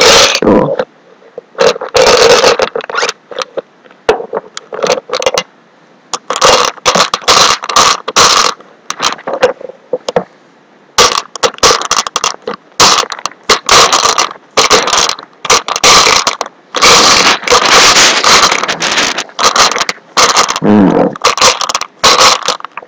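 Bean Boozled jelly beans rattling and scraping in their box as they are picked through by hand, in loud irregular bursts of clatter close to the microphone.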